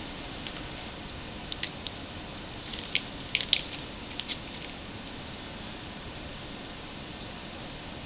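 An African grey parrot's beak clicking and nibbling at a toy on its perch: a scatter of small, sharp clicks over about the first four seconds, over a steady background hiss.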